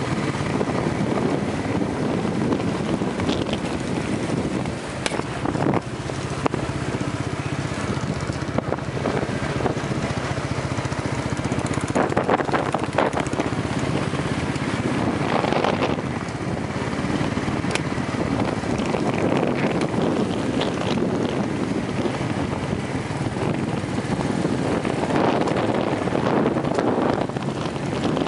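Motorcycle engine running steadily while riding at road speed, heard from the moving bike, with wind rushing over the microphone.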